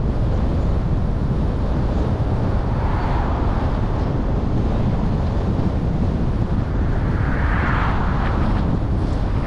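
Steady low rumble of wind on the microphone and road noise from a car driving along a street, with two brief swells of hiss, about three seconds in and about eight seconds in.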